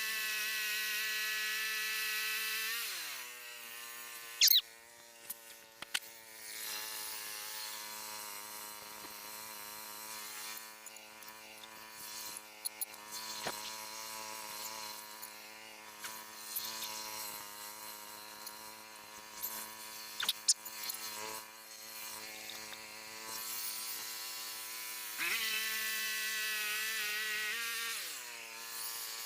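Frontier OS27 bandsaw sawmill's small gasoline engine running: at high speed at first, dropping to a lower idle about three seconds in, throttled up again near the end and dropping back. A few sharp knocks sound over it, the loudest about four seconds in.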